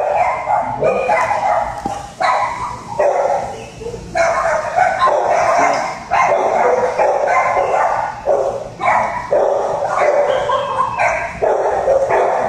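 Dogs barking in shelter kennels, in loud runs about a second long with short breaks between them.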